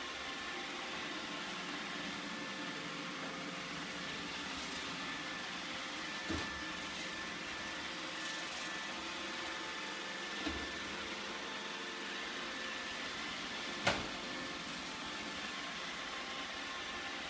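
iRobot Roomba 880 robot vacuum running steadily, its motors and brushes giving a constant whir. Its bumper knocks against chair legs three times, about six, ten and fourteen seconds in, the last knock the loudest.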